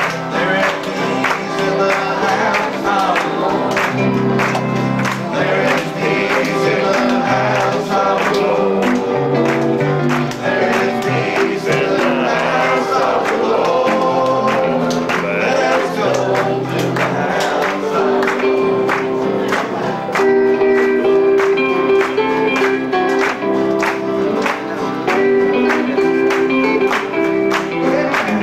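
Live gospel song: a voice singing into a microphone over guitar accompaniment with a steady strummed rhythm.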